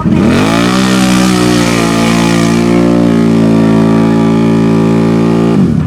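Off-road vehicle engine revving up in the first second and held at high, steady revs, then cut back abruptly near the end.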